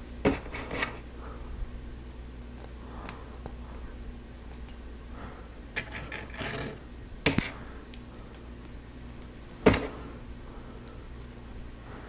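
Plastic Lego Technic beams and pins being handled and pushed together: scattered sharp clicks and small rattles, a handful over several seconds, the loudest near the end.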